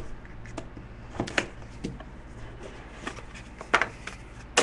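A few short, sharp clicks and taps from handling a box of trading cards as it is opened, over a steady low hum.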